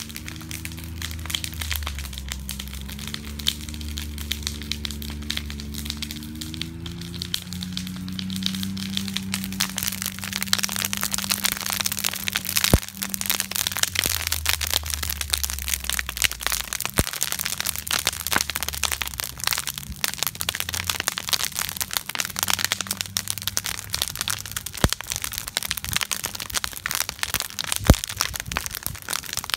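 Wood fire of stacked lumber crackling steadily, with a few louder sharp pops. Through the first half a low drone with several pitches runs underneath, shifting in steps before fading out.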